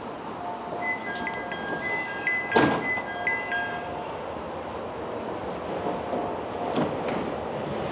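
Electronic chime melody of short hopping notes sounding at a station platform beside a stopped JR East 701-series train, with a short loud burst of noise partway through. Then the train's steady standing hum.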